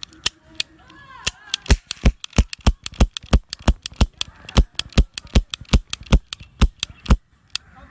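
Toy cap gun revolver firing its caps one after another: a rapid run of sharp bangs, several a second, for about six seconds, stopping suddenly once the caps are used up.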